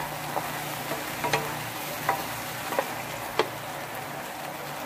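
Beef pieces sizzling in bubbling pan juices as a wooden spatula stirs them, with about five sharp clicks and scrapes of the spatula against the frying pan.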